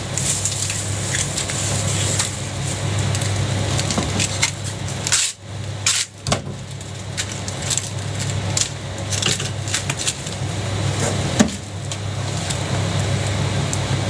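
Scattered light knocks, taps and scrapes of cooking utensils at a jianbing stall, over a steady low hum, with a sharper knock about eleven seconds in.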